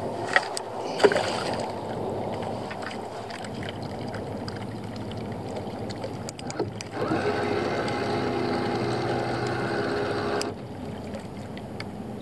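Two sharp knocks in the first second, then a bow-mounted electric trolling motor runs for about three and a half seconds: a steady hum that starts and stops abruptly.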